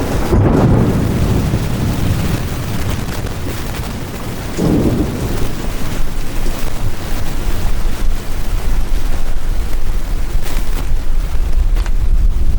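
Strong wind of a passing cold front gusting over the boat, with heavy low buffeting on the microphone and gusts swelling near the start and again about five seconds in.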